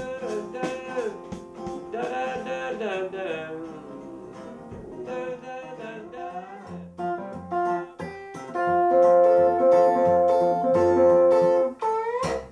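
Blues band playing an instrumental passage: plucked guitars over electric bass, with held, louder guitar notes in the last few seconds.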